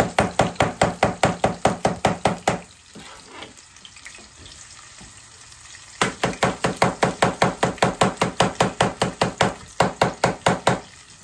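Knife chopping green pepper fast on a cutting board, about five strokes a second, in two runs with a pause of about three seconds between them.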